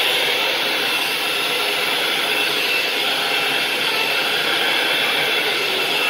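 Handheld hair dryer running steadily: a continuous rush of air with a thin, steady high whine.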